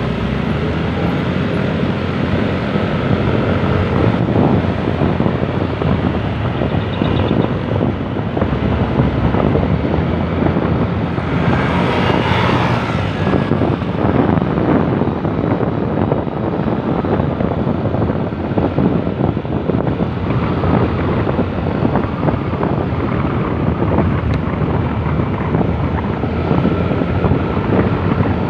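Wind rushing over the microphone of a moving motorcycle, with engine and road noise underneath. A brief, brighter rush of noise swells and fades about twelve seconds in.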